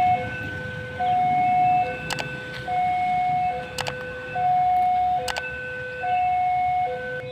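Railway level crossing warning alarm sounding: an electronic two-tone signal alternating high and low, each tone just under a second, warning that a train is approaching as the barriers close. A few sharp clicks cut in around two, four and five seconds in.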